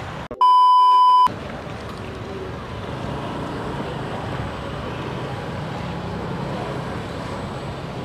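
A loud, steady electronic beep lasting about a second near the start. After it comes a steady wash of street traffic, with motorbikes moving past.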